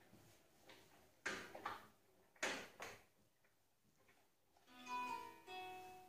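Laundry being pulled out of the drum of a Samsung WW10H9600EW front-loading washing machine, with a few short rustles and soft knocks. Near the end the machine plays its short electronic power-off tune, a few held notes at different pitches, as it switches off.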